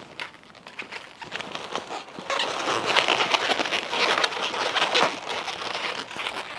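Inflated latex 260 twisting balloons squeaking and rubbing against each other as they are handled and twisted together by hand. Faint at first, then a dense run of squeaks from about two seconds in.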